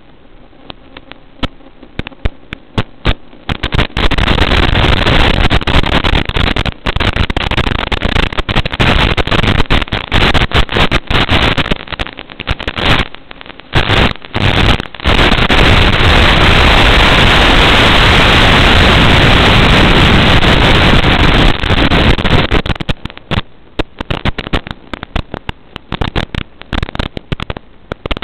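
Static from an analog FPV video receiver as the drone's video signal breaks up: scattered crackles grow after about four seconds into a loud hiss full of crackles and dropouts, steadiest in the second half, then thin back to sparse crackles a few seconds before the end.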